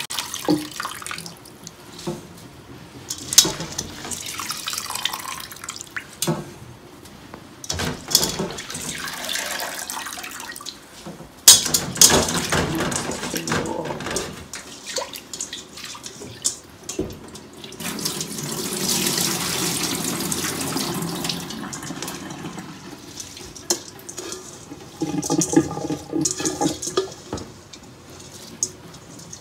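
Soaked glutinous rice lifted by hand out of a stainless steel bowl of water and dropped into a cloth-lined steamer basket: water sloshing and dripping, with a few sharp knocks of the metal bowl.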